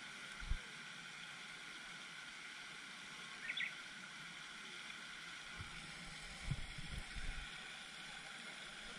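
Outdoor pond ambience: a steady hiss of spraying fountain water, with a few low dull bumps of wind or handling on the camera microphone, once near the start and several more past the middle.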